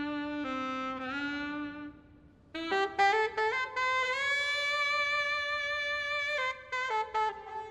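Alto saxophone playing a slow, unaccompanied melodic line: a long low held note that steps down and fades, a brief pause, then a quick run upward into a long high held note that bends slightly upward, before stepping back down.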